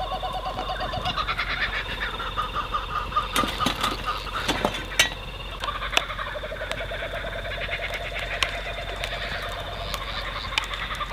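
A chorus of wild animals calling in rapid pulsed trills at several pitches, overlapping without a break, with a few sharp clicks about five, six and eight and a half seconds in.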